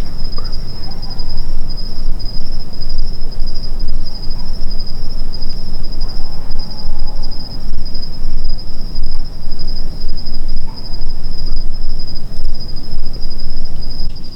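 Night insect chorus: a steady, finely pulsing high-pitched trill. Under it runs a loud, uneven low rumble.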